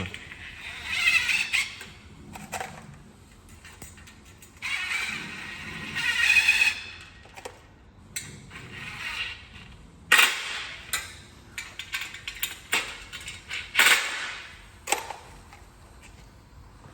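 Greenhouse ridge sections being screwed together: several bursts of screw-driving noise of a second or two each, then a run of sharp clicks and clinks from the parts being handled.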